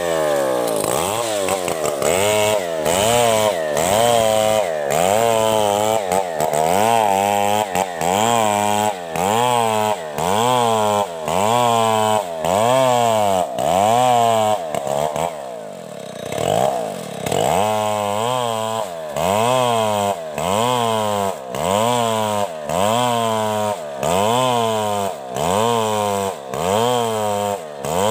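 Chainsaw ripping lengthwise through a coconut palm trunk, its engine pitch dropping and climbing back a little faster than once a second as the chain bites into the wood and eases off. The rhythm breaks briefly about halfway through, then resumes.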